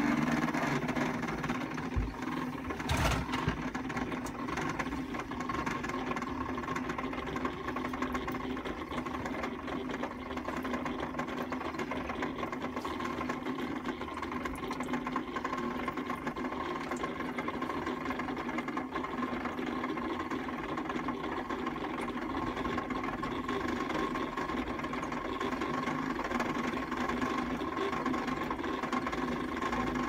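Battery-powered plastic toy washing machine running, its small electric motor whirring steadily. A single knock sounds about three seconds in.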